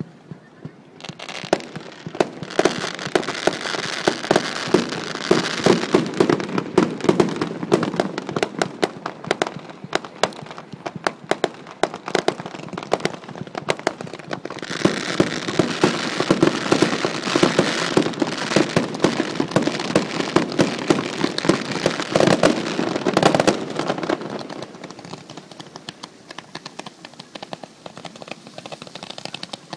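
Set-piece fireworks burning with dense, rapid crackling and popping in two long stretches, the second ending about 24 seconds in, then thinning to sparse, fainter crackles.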